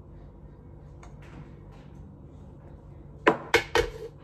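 A metal spoon knocked three times in quick succession against the rim of a Kenwood blender jar, sharp taps about a quarter of a second apart, near the end. A low steady hum sits underneath.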